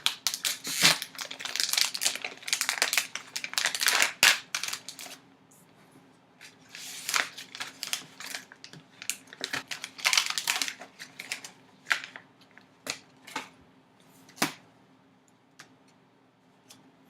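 Plastic and paper packaging of a trading-card value pack being torn open and crinkled, dense for the first five seconds, then scattered rustles and clicks as the cards are handled.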